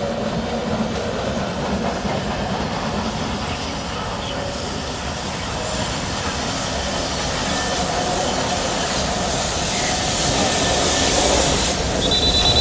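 Jordan Hejaz Railway steam locomotive hauling passenger coaches along the track, its running and rumbling growing louder as it approaches. A loud hiss of steam is heard over it near the end.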